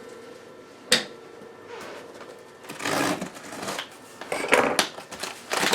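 Cardboard packaging being handled and opened: a sharp click about a second in, then several bursts of scraping and rustling.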